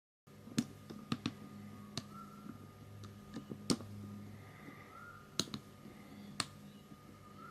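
Irregular sharp clicks and taps of small plastic parts and tools being handled during hand assembly, over a low steady hum, with three short faint rising squeaks.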